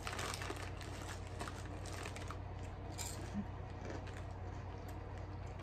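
Potato chip bag crinkling and rustling as a hand reaches in and takes chips out, with scattered light crackles.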